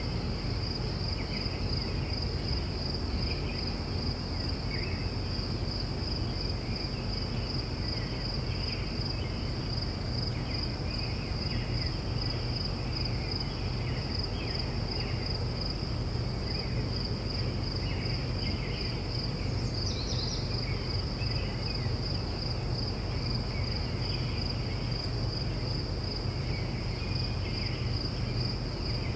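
Crickets chirping in a steady, fast high trill, with scattered short bird chirps and a constant low rumble underneath. About twenty seconds in, a brief sweeping call cuts across the trill.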